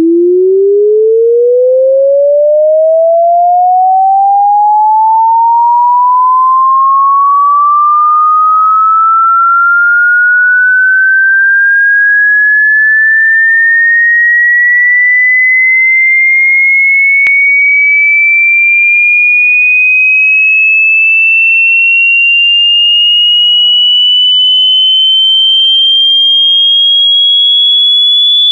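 Electronic alarm tone: a single pure tone rising slowly and steadily in pitch, from a low hum to a high whistle, at a constant loud level. A faint click falls a little past halfway.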